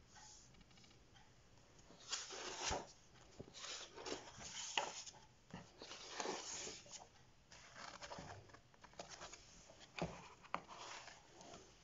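Pages of a colouring book being turned by hand: a run of paper swishes and rustles, with a few light taps of the hand on the page near the end.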